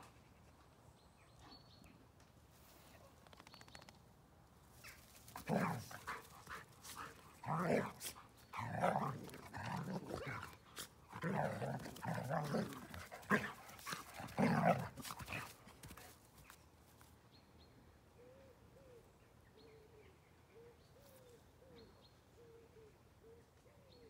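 Two dogs at play, vocalising in a string of growls and barks for about ten seconds from roughly five seconds in.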